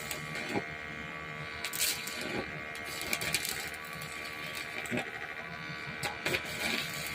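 A steady electric buzz made of several fixed tones, with a few short knocks and clicks scattered through it.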